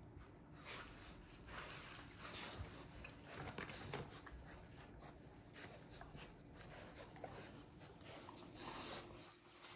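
Quiet room with faint, irregular scuffling and rustling from American bully puppies moving about on an artificial-turf mat, over a low steady hum.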